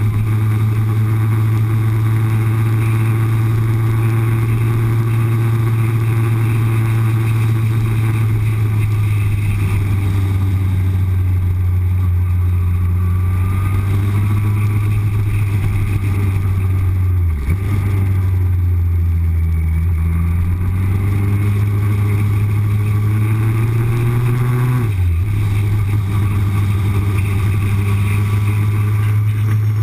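Yamaha R1 motorcycle engine running at low, steady revs while cruising. About two-thirds of the way through, the revs climb slowly and then drop sharply, as on a gear change, before settling back to a steady run.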